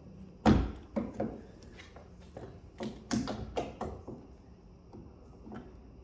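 2007 Ford S-Max exterior door handle being pushed and clipped into the door: a sharp knock about half a second in, then several lighter clicks and knocks, with a quick run of them around three to four seconds in.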